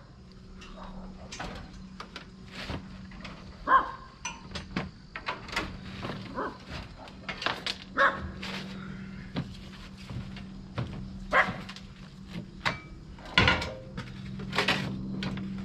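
A dog barking now and then, loudest about four seconds in, over repeated knocks and clatter from debris being handled, with a steady low hum underneath.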